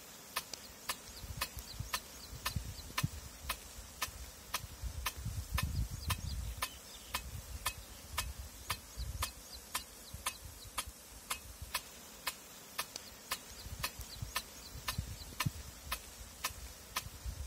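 Aluminium Heera rain gun sprinkler running, its flap arm ticking steadily at about two ticks a second as it drives the gun round. A low rumble comes and goes, strongest about six seconds in.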